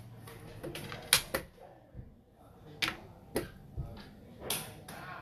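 Xiangqi pieces clacking down on a wooden board and chess clock buttons being pressed: a string of about half a dozen sharp, separate clicks, the loudest a little after one second in.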